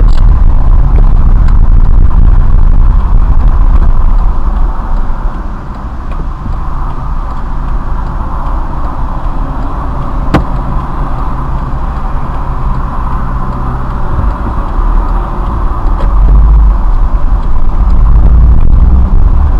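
Steady low rumble of a car heard from inside its cabin, loudest at the start and end and dipping for a few seconds about a quarter of the way in, with a single sharp click about halfway through.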